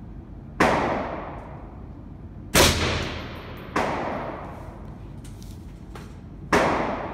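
.308 rifle shots in an indoor range: four sharp reports, unevenly spaced one to three seconds apart, each trailing off in a long echo. The third report is a little softer than the others.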